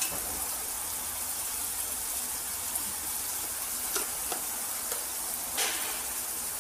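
Onion-garlic masala with a little water frying in a steel kadhai, sizzling steadily, with a few light utensil clinks about four seconds in and again near the end.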